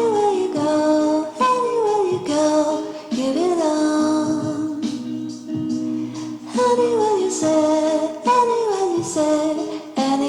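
Background music: a song with a sung melody, its phrases sliding in pitch, over sustained accompaniment.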